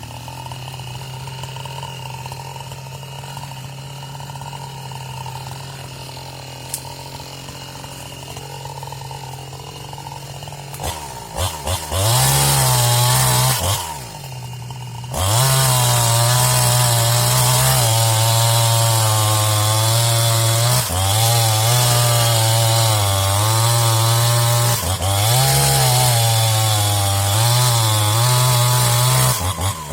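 New West 628 two-stroke chainsaw idling steadily, then revved a few times about eleven seconds in and run at full throttle. Its pitch sags and recovers repeatedly under load as it cuts into a tree.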